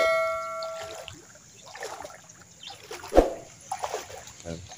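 Footsteps wading through shallow floodwater, with irregular splashes and sloshes and one louder splash about three seconds in. A bell-like metallic ring fades out in the first second.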